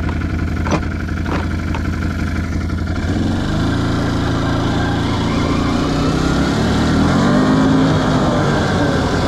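Can-Am Outlander 570 ATV's V-twin engine running on the move, steady at first, then revving up about three seconds in and pulling at higher revs under throttle, with a further rise before easing back near the end. The engine has freshly been broken in again after new piston rings.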